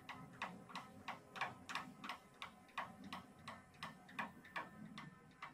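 Faint, regular clicking, about three clicks a second, from the hand wheel of a TRAK 1845SX CNC lathe being cranked in tracking mode to feed the drill toward the part. A low hum from the running spindle lies underneath.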